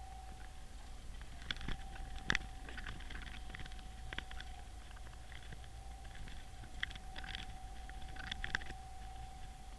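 Underwater ambience picked up by a submerged camera: a steady low hum and a faint steady whine, with scattered small clicks and ticks. The sharpest click comes a little over two seconds in.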